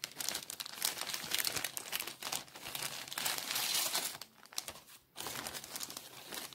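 Clear plastic cellophane sleeve crinkling and crackling as hands open it and slide a card out, with a short lull about five seconds in.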